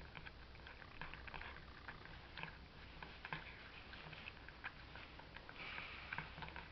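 A cat eating from a dish, chewing with faint, irregular little crunches and clicks.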